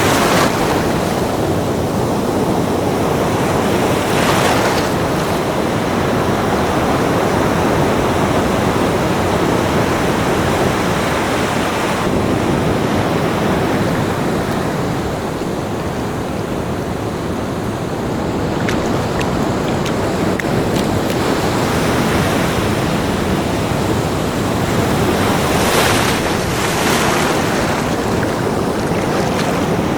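Ocean surf on a beach: a steady wash of breaking waves, swelling with a wave breaking about four seconds in and again near the end, with some wind on the microphone.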